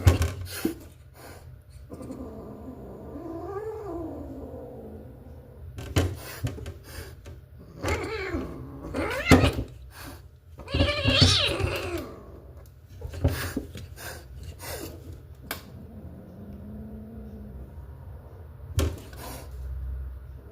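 A domestic cat yowling and meowing repeatedly: one long call that rises and falls, then several shorter, louder calls.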